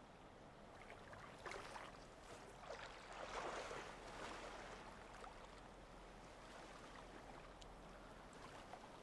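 Faint water lapping and splashing around a small boat, swelling softly twice, with a few light ticks.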